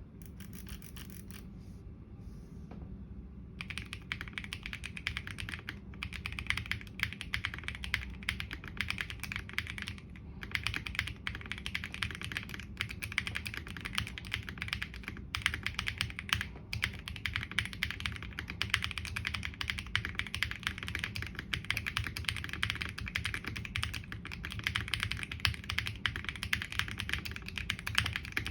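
LEOBOG K81 mechanical keyboard being typed on in a fast, continuous run of keystrokes. The typing starts sparse and picks up into a dense stream about three and a half seconds in.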